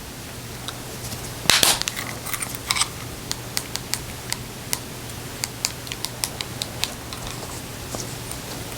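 Plastic Ford key fob case being handled and snapped back together: a loud rattle about a second and a half in, then a string of small sharp plastic clicks, over a steady low hum.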